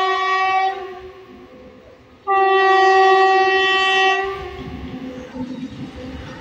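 WAG-7 electric locomotive's air horn: a blast that cuts off just under a second in, then one long blast of about two seconds. After it comes the rumble of the approaching loaded coal freight train on the rails, growing louder.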